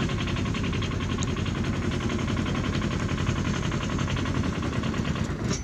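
A small engine running steadily with a fast, even beat, cut off abruptly at the end.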